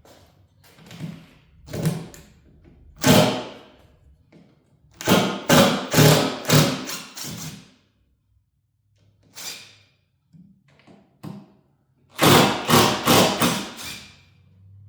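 Thumps and knocks of wooden boards being worked loose and handled on a radial arm saw's table, coming in irregular clusters with short gaps between them.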